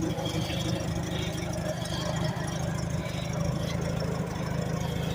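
A vehicle engine running steadily at idle, with an even, rapid pulsing.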